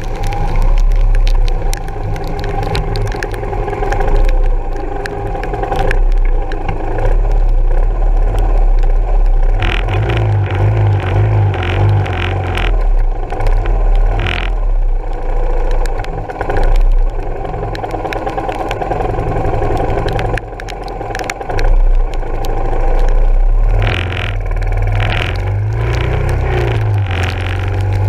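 Yamaha SR400 single-cylinder four-stroke engine running on the move, heard through heavy wind and rain buffeting the bike-mounted camera. The engine note picks up about ten seconds in and again near the end.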